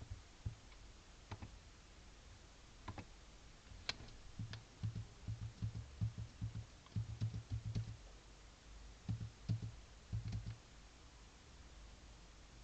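Computer keyboard keys being pressed a few at a time, with pauses between, short clicks and dull taps.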